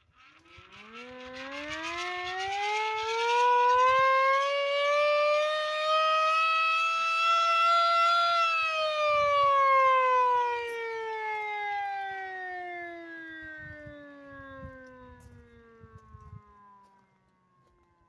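Hand-cranked mechanical siren being wound up, its wail rising steadily in pitch for about eight seconds, then left to spin down in a long falling tone that fades out near the end. A rattling whir rides on the rising part.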